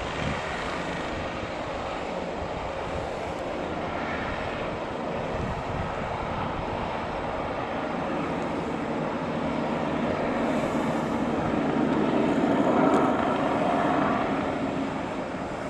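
Helicopter flying past with a steady rotor and engine noise that grows louder about ten seconds in, then eases off near the end.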